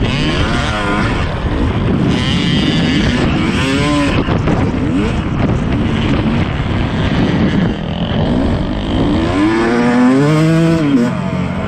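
Dirt bike engine running hard under load, its pitch surging up and falling back as the throttle is worked: about a second in, around four seconds in, and most strongly near the end. Wind noise on the microphone runs under it.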